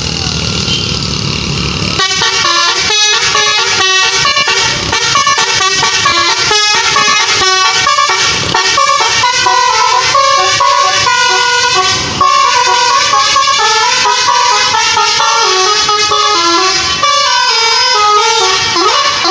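Tour bus's basuri horn, a bank of tuned electric horns, playing a fast telolet melody of quickly changing notes, starting about two seconds in.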